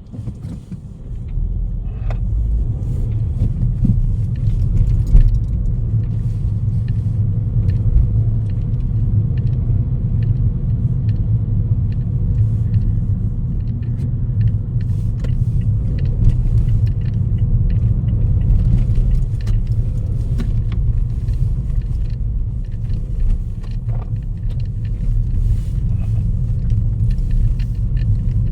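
Strong storm wind buffeting the microphone: a heavy, steady low rumble that swells about a second in, with scattered light ticks over it.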